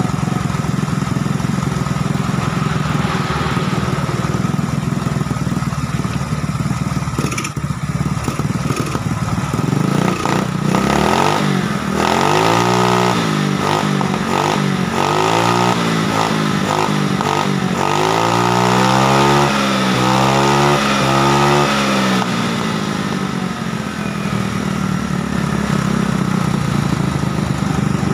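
Rusi Venus scooter's GY6 single-cylinder four-stroke engine running steadily, revved up and down several times in the middle and then settling back to a steady run. It is now running after a replacement CDI was fitted to cure hard starting.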